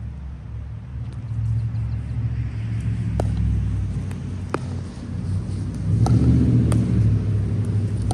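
Pickleball rally: paddles hitting a plastic pickleball with sharp pops, four hits spaced about a second apart in the second half. Under them runs a low rumble that swells about six seconds in and is the loudest sound.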